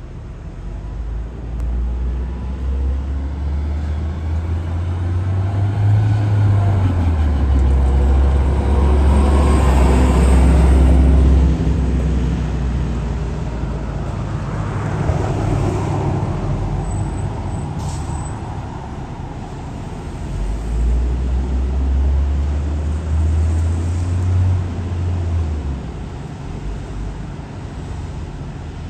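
New Flyer transit bus with a Cummins Westport C Gas Plus natural-gas engine running; the low engine drone swells twice, loudest about ten seconds in and again past twenty seconds. A short sharp sound about eighteen seconds in.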